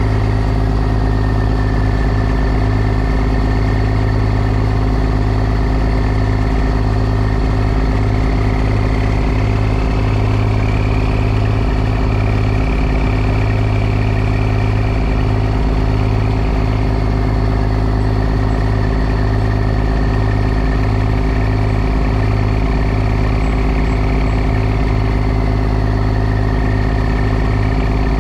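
Heavy diesel engine running steadily at a constant pace, with a thin high whine that drifts slowly up and down in pitch.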